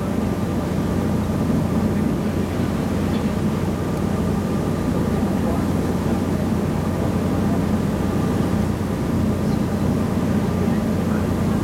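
Sightseeing boat's engine running steadily under way, a low even drone with a faint steady whine above it.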